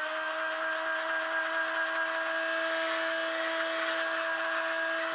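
Handheld heat gun running steadily: a fan whine over a rush of hot air, blowing on freshly sprayed paint to dry it.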